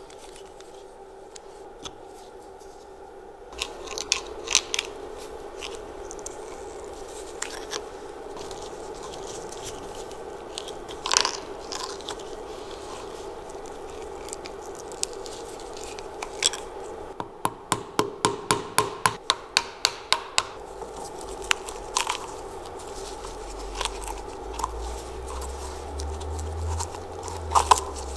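Hand tools working on a rusty brake caliper in a vise: scattered scrapes and sharp clicks, with a run of quick, even clicks, about five a second, lasting about three seconds past the middle.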